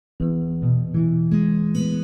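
Background music of plucked guitar notes, starting a moment in.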